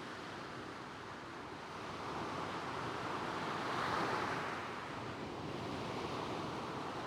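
Small waves breaking and washing over a shingle beach. The surf swells to its loudest about four seconds in, then falls back as the water draws off.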